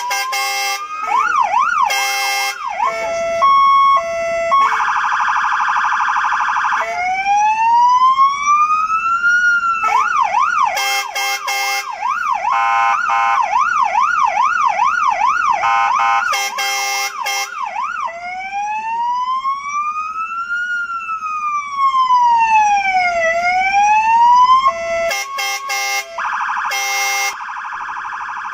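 Fire engine's electronic siren switched through its tones: a rapid yelp, a two-tone hi-lo, and a slow wail rising and falling over several seconds. It is broken several times by short horn blasts.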